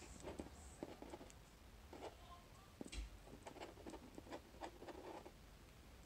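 Faint, scattered small clicks and ticks with brief rustling as thin jewellery wire is wrapped by hand around a metal tiara band.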